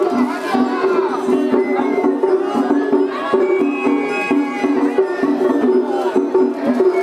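Traditional Japanese festival music plays steadily, a repeating two-note pattern, with the voices of the shrine carriers and crowd over it.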